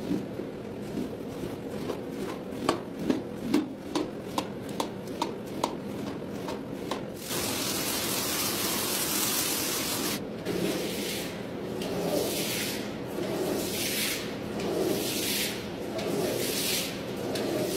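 Stiff brush scrubbing a wet, foam-covered rug, with a run of sharp taps at first. About seven seconds in, a spray of water hisses steadily for about three seconds, then long brush strokes scrub the soapy pile again, about one a second.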